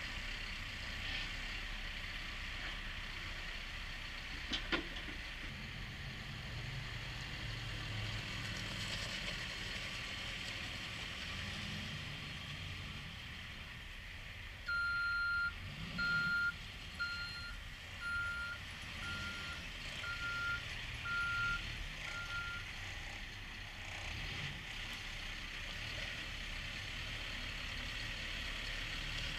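Cat 430F backhoe loader's diesel engine running steadily while its reversing alarm beeps about eight times, roughly one beep a second, in the middle stretch. There is a single short knock a few seconds in.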